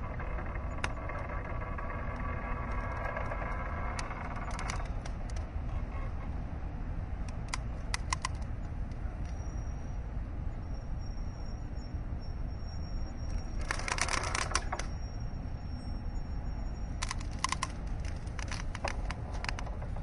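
Mooring ropes creaking under strain, over a steady low rumble. A drawn-out pitched creak comes in the first few seconds, then scattered sharp clicks and creaks, with a louder burst of crackling creaks about fourteen seconds in.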